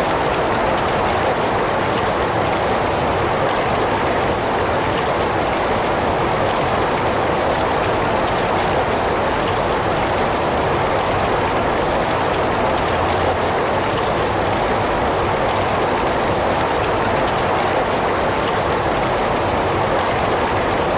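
Heavy rain falling steadily: an even, unbroken hiss with no distinct drops or gaps.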